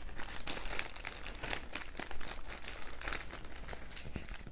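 Clear plastic bags crinkling and rustling in irregular bursts as they are handled.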